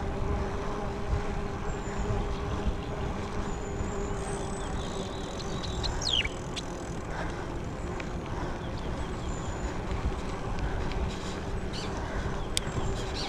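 Wind rushing over the microphone and tyre noise as a bicycle rolls along a smooth asphalt road, with a steady hum throughout. A couple of short falling chirps come about halfway through.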